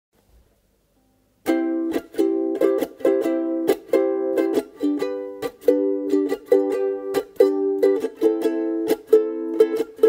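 Music on a strummed acoustic string instrument, starting about one and a half seconds in. It plays a steady rhythm of chords with sharp muted strokes between them.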